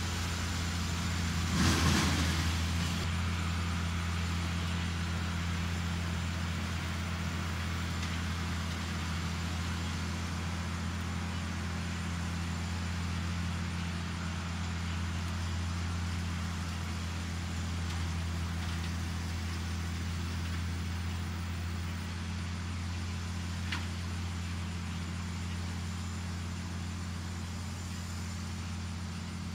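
Farmall 1066 tractor engine running at steady speed while mowing, a constant low drone that fades slightly as the tractor moves away. A brief louder burst of noise about two seconds in.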